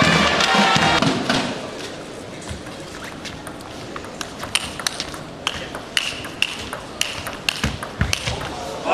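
Table tennis rally: the ball clicks off the bats and the table in a quick back-and-forth exchange of strokes, with a short ping on some hits, over a hushed arena. Loud crowd noise fades out in the first second or so, before the rally.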